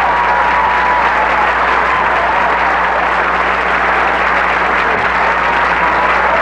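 Studio audience applauding steadily as a stand-up set ends.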